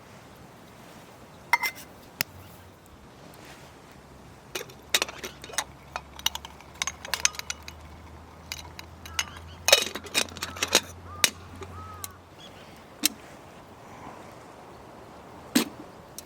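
Scattered light clinks and knocks of camp gear, such as cookware or utensils, being handled. They come thickest through the middle, over a low steady hum.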